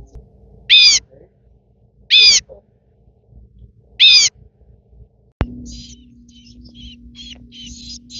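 Baby crows begging with loud, harsh calls: three separate calls about a second and a half apart. A sharp click follows, then a run of quicker, shorter calls that come faster toward the end.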